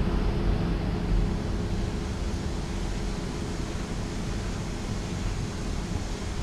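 Electric vertical multistage water booster pumps running with a steady hum over an even whooshing noise, as the pumps are tested.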